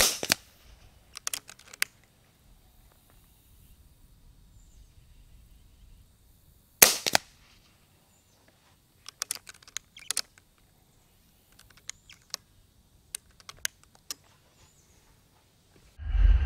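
Two muffled shots from an Ataman M2r .22 regulated PCP air rifle, about seven seconds apart, with small metallic clicks of the action being cycled and reloaded between them. Near the end, a deep whooshing transition sound effect comes in.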